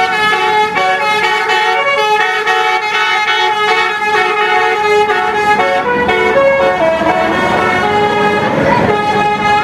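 Telolet basuri bus horn, a multi-trumpet air horn, playing a fast tune of short notes that jump up and down in pitch, several sounding together. A brief rush of noise swells and fades a little before the end.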